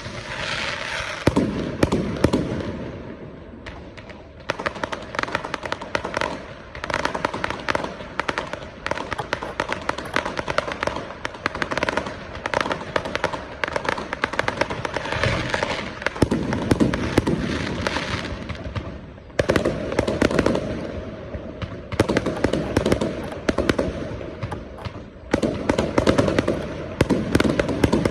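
Aerial fireworks going off in dense volleys: rapid cracks and bangs one on top of another, easing in brief lulls a few times before the barrage picks up again.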